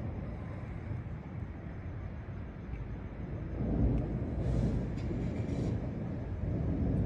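Low rolling rumble of distant thunder, swelling about four seconds in and again near the end.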